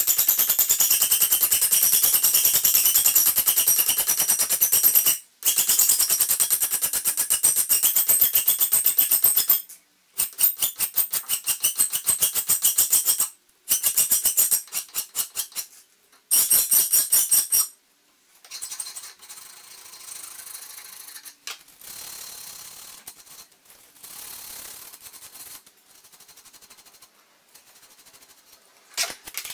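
Flat file rasping across the edge of a sheet-metal piece clamped in a bench vice between pieces of wood, in quick continuous strokes broken by a few short pauses. About 18 seconds in, the filing stops and only quieter scraping and handling sounds remain.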